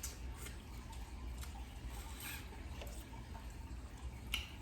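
Crawfish being peeled and eaten: scattered small wet clicks and cracks of shells, with sucking and smacking.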